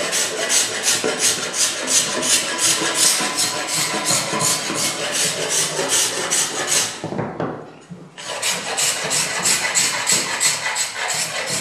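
Hand scraper stripping old varnish from the bentwood frame of a Thonet rocking chair: quick, rhythmic rasping strokes, about three a second. The strokes stop for about a second past the middle, then start again.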